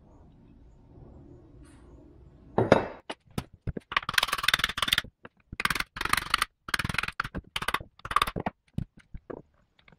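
A heavy thump about two and a half seconds in, then repeated bursts of quick hammer blows: a hand sledge hammer striking the steel shaft and cast-iron case of a riding-mower gearbox being taken apart.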